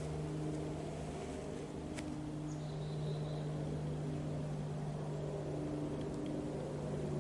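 Steady low engine-like hum, with a single sharp click about two seconds in.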